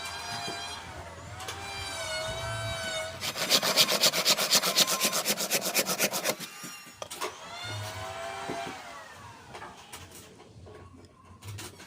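Power drill/driver motor whining, its pitch gliding up and down as it speeds up and slows, with a louder stretch of rapid, even clattering in the middle while fastening hardware into wood.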